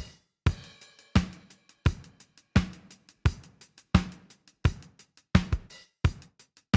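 Drum kit pattern: a strong hit about every 0.7 seconds, with quieter hi-hat ticks between the hits.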